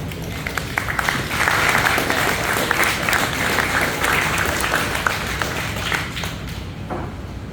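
Crowd applauding and clapping, swelling about a second in and dying away near the end.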